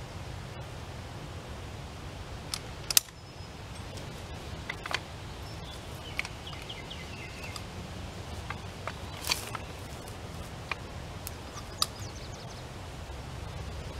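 Scattered sharp metal clicks and clinks from a red high-lift farm jack and its chain being worked at the base of a wooden fence post, about half a dozen in all, the loudest about three seconds in and about nine seconds in, over a low steady background rumble.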